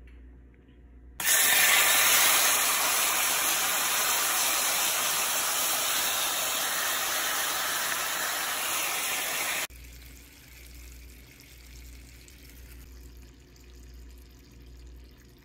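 Loud sizzling of seafood and crab paste sauce on a hot sizzling plate. It starts suddenly about a second in and cuts off abruptly a little over halfway through, leaving a faint hiss and a low hum.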